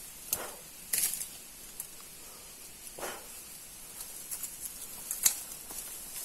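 Dry bamboo stems and leaves rustling and snapping as someone pushes into a thicket: a few scattered short cracks and brief rustles, about a second in, at three seconds and again near the end.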